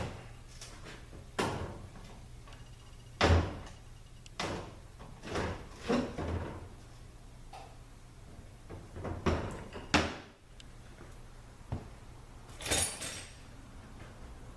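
Scattered metal clunks and clicks of hand tools and parts being handled on an automatic transaxle's aluminium case during teardown, about ten separate knocks, over a steady low hum.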